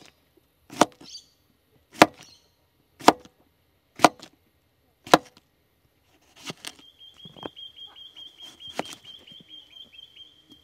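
Kitchen knife slicing through a cucumber on a cutting board, each cut ending in a sharp knock of the blade on the board, about one a second for six cuts, then softer, more irregular cuts. A steady high-pitched buzz joins about two-thirds of the way through.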